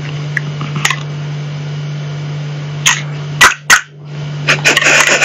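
Sharp plastic clicks and taps from a hand-held dinosaur grabber toy as it is worked and pawed at by a cat, a few single clicks and then a quick flurry near the end, over a steady low hum.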